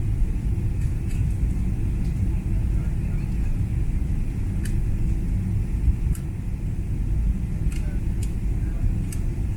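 Steady low rumble inside an airliner cabin as the plane comes in to land at the airport, with a few faint clicks scattered through it.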